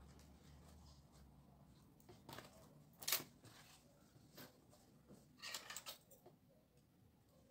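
Quiet handling noises of fabric and thread at a sewing machine: a few short rustles and clicks, the sharpest about three seconds in and a short run of them later. A low hum stops about a second in.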